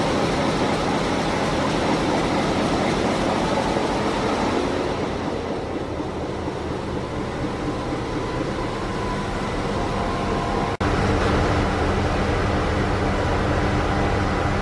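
Loud, steady engine-room noise from a ferry's running Wärtsilä 8L50DF eight-cylinder dual-fuel engines. After a cut about eleven seconds in, it changes to a steadier machinery hum with several distinct tones.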